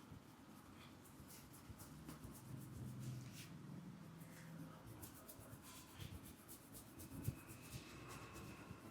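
Faint scratching and rubbing of fingers working through oiled hair and scalp in a head massage, with one sharper tick about seven seconds in.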